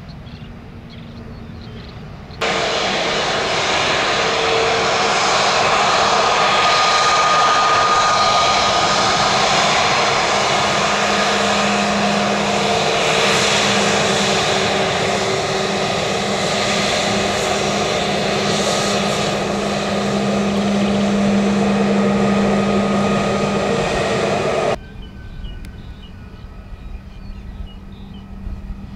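Airbus A320neo jet engines running at taxi power close by: a loud, steady rush with a low hum and a higher whine over it. It starts and stops abruptly, and a fainter, steady distant aircraft hum is left either side.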